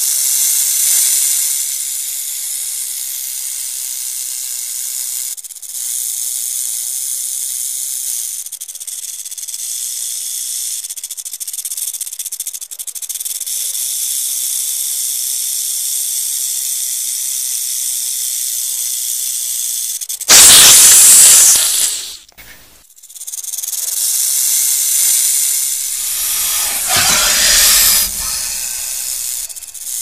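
Rattlesnake rattling, a steady high-pitched buzz. Two much louder, fuller bursts interrupt it, one about twenty seconds in that cuts off suddenly, and another about six seconds later.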